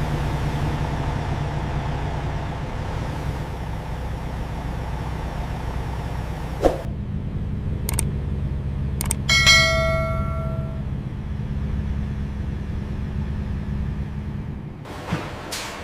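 Steady low mechanical hum, with a few sharp clicks and one metallic clang about nine and a half seconds in that rings on for about a second.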